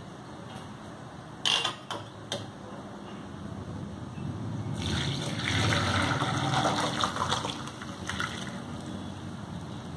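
Boiled soya chunks and their cooking water poured from a pot into a steel mesh strainer, the water gushing through the mesh into the pot below from about halfway through and thinning to a trickle near the end. A couple of sharp metal clanks come shortly before the pour.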